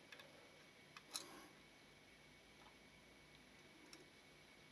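Near silence with a few faint, short clicks, the clearest about a second in: a small screwdriver tightening a screw in a camera lens's leaf shutter.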